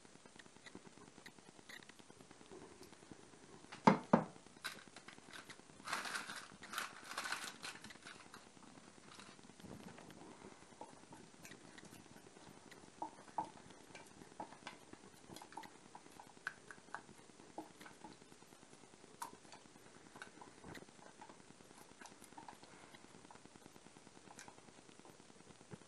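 A spatula scraping thick, sticky warabi-mochi dough out of a nonstick saucepan, in short irregular scrapes and light taps. Two loud knocks come about four seconds in, followed by a brief run of busier scraping.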